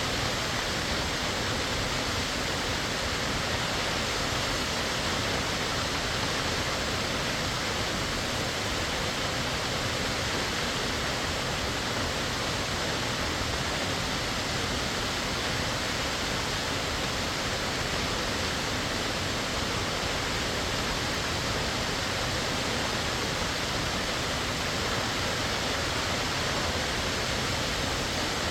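Waterfall rushing steadily, a constant full, even roar of falling water.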